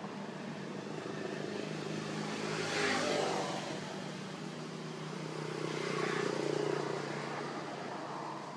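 Passing road traffic: a steady engine hum, with two swells of vehicle noise as vehicles go by, one about three seconds in and another about six seconds in.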